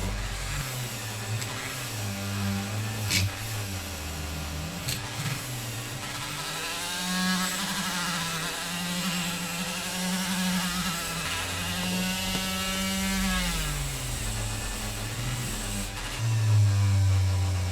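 Motor-driven rotary wire brush scrubbing a die-cast metal model car body. The motor's hum shifts up and down in pitch as the brush is pressed on and eased off, over a steady hiss, and its pitch falls away near the end.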